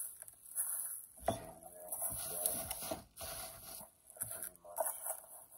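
Packaging being handled: plastic bubble wrap rustling and a cardboard shipping box scraping and rustling, with a sharp knock about a second in.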